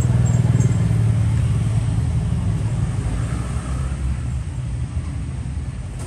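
Steady low rumble of passing road traffic, swelling about a second in and slowly easing off.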